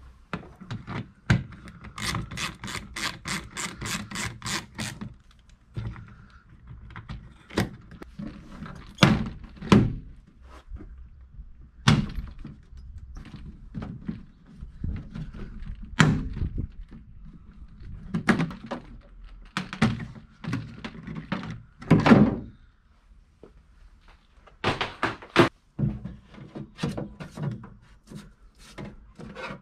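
Clicks, knocks and thunks as a plastic trim panel is unscrewed and prised off a Vauxhall Vivaro van's rear door. A fast run of about four clicks a second comes a couple of seconds in, followed by scattered sharp knocks as the panel and its clips come away from the steel door.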